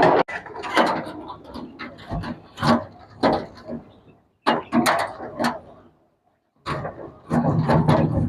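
Irregular knocks, clicks and clatter of hand work on metal parts, fitting a condenser fan motor, with a brief pause a little past the middle.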